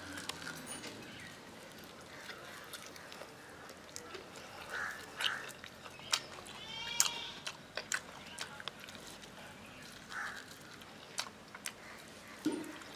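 Goat bleats over a quiet outdoor background: one clear bleat with a wavering pitch about seven seconds in and a few fainter calls, with scattered small clicks.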